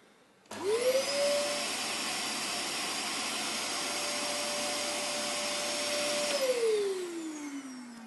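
Dyson vacuum cleaner's roughly 1400-watt motor switched on: its whine rises quickly to a steady pitch as it spins up, and it runs very noisy for about six seconds. Near the end it is switched off and the whine falls in pitch as the motor winds down.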